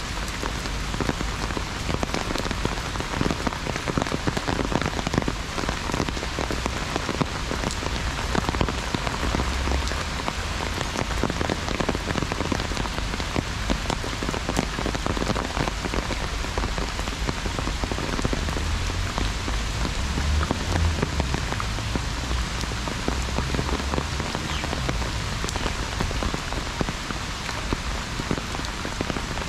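Heavy rain falling on an umbrella overhead: a dense, steady hiss made of countless sharp drop hits.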